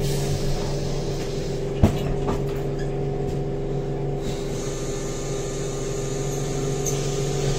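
Steady running hum and rumble inside a city transit vehicle, with a single sharp knock about two seconds in.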